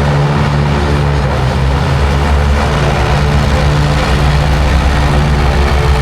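Jet ski engines running loudly with a steady, droning low note.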